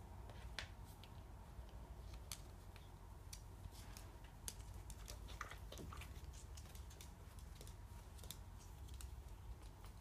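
Faint, irregular light clicks and taps from an African grey parrot moving about and nibbling beside a dog on a wooden floor, with a brief soft squeak about five and a half seconds in.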